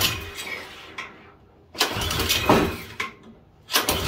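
A 179cc LCT Storm Force snowblower engine being pull-started with the choke on. It cranks over in a short burst with each hard yank of the recoil rope, about two seconds apart, and each burst dies away without the engine catching.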